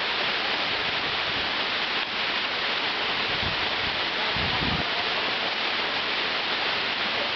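Waterfall running: a steady, unbroken rush of falling water, with a brief low bump about four and a half seconds in.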